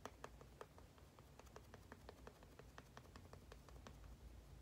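Faint, soft taps and clicks of a makeup sponge being dabbed against the skin, several a second at an uneven pace.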